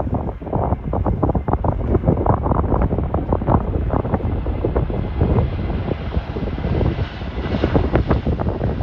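Jet engines of an Airbus A321 airliner passing overhead, buried in heavy wind buffeting on the microphone, with a higher jet hiss growing louder over the second half.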